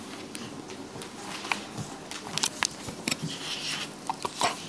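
Scattered soft clicks and rustles close to the microphone as a hand handles and plays with a Boerboel puppy's head and muzzle.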